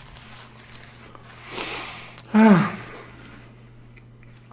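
A man with his mouth full of burger takes a breath through his nose. Just after it comes a short, low voiced 'mm' hum that falls in pitch.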